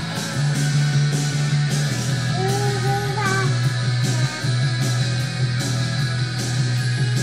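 Rock-style music playing, with guitar and a steady beat about twice a second, and a short sung or hummed phrase about halfway through.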